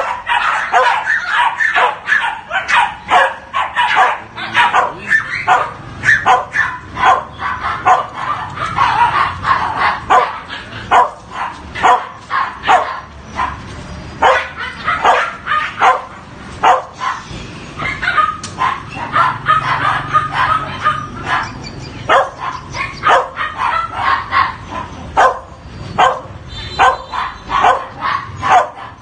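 Yorkshire terriers barking, a continuous run of short, sharp yaps coming a few times a second.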